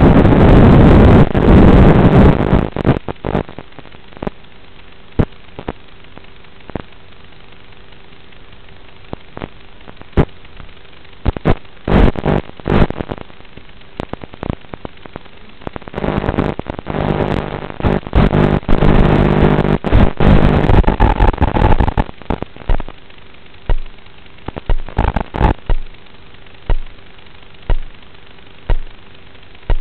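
Crackling, static-laden audio from an FPV model plane's analog video link: a loud rush of wind and motor noise at first, then scattered crackles and pops, a stretch of steady motor drone a little past the middle, and regular pops about once a second near the end.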